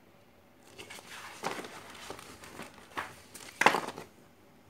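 Stiff photo prints being handled and swapped, with rustling and crinkling that starts under a second in and carries several sharper crackles, the loudest about three and a half seconds in.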